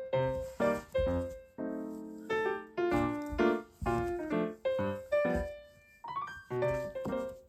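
Background piano music, notes struck at a steady, unhurried pace.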